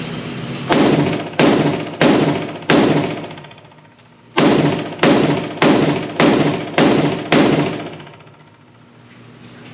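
Springfield Hellion 5.56 mm bullpup rifle fired semi-automatically: ten shots in two strings, four then six, at about one and a half shots a second, each with a ringing echo tail.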